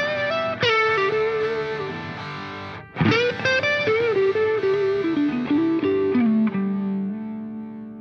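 Background music led by an effects-laden electric guitar playing a melodic line with bent notes. After a short gap about three seconds in, the line falls step by step and settles on a held low note near the end.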